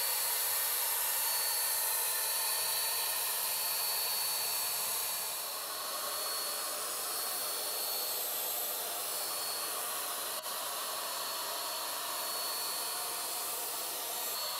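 Wagner W 550 electric HVLP paint sprayer running while spraying varnish: a steady rush of air with a constant high turbine whine over it.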